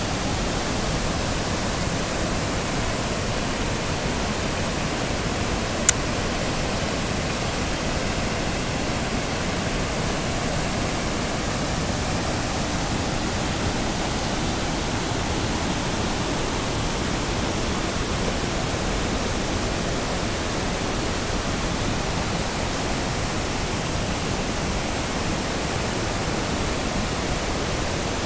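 Tygart Valley River rushing steadily over rapids and low falls, a dense, even roar of white water. A single sharp click about six seconds in.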